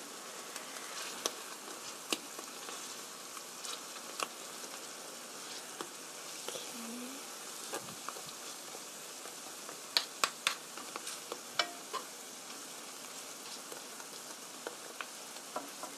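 Potato batter frying gently in oil in a nonstick pan, a steady soft sizzle, with scattered clicks and scrapes of a metal spoon and wooden spatula against the pan as the batter is spread; a cluster of sharper clicks comes about ten seconds in.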